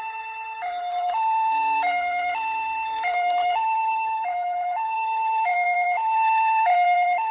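Ambulance two-tone hi-lo siren, the Japanese "pee-po" pattern, from a toy ambulance minicar: two pitches alternating evenly, each held a little over half a second.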